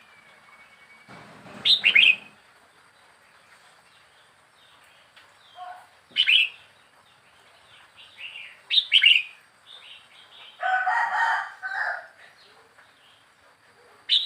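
A wild-caught red-whiskered bulbul, four weeks in a cage, calling in short bright phrases a few seconds apart, four times. About two-thirds of the way through there is a rougher, lower call lasting about a second and a half.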